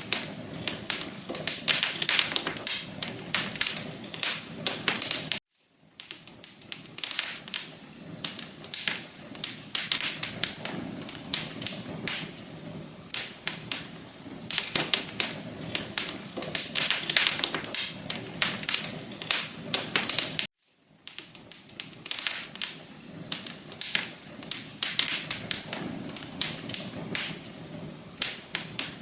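Wood fire in a fireplace crackling: a dense, irregular run of pops and snaps over a soft hiss. The sound cuts out for a moment twice, about five seconds in and again about twenty seconds in.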